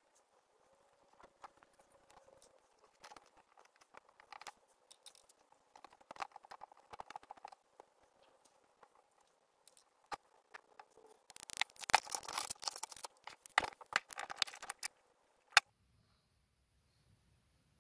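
Hands working on an old 3.5-inch floppy disk drive's mechanism while cleaning it: scattered light clicks and rustles, then a few seconds of scratchy rubbing and scraping about eleven seconds in, ending with a sharp click. After that only a faint low hum remains.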